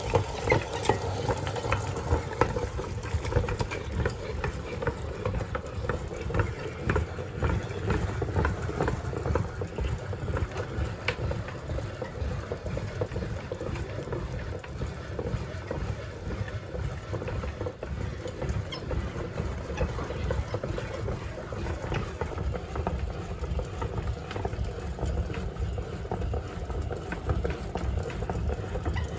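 Meat grinder running as it grinds ice cream: a steady low rumble with scattered clicks.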